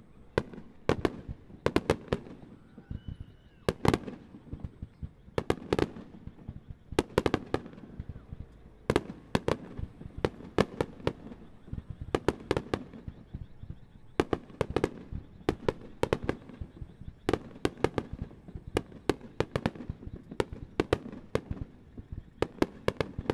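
Wide star mine fireworks barrage: many aerial shells bursting one after another, sharp bangs in quick clusters over a low rumble, with no let-up.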